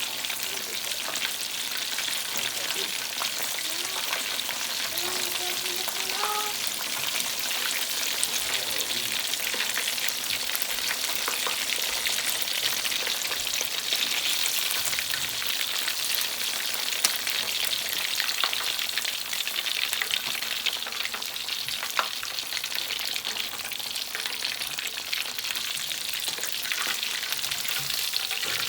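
Chicken pieces frying in hot oil: a steady, dense crackling sizzle with many small pops.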